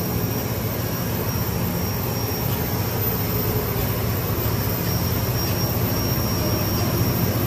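Steady hum of jet aircraft engines running on the airport apron, heard through the terminal's window glass, with a thin high whine held throughout.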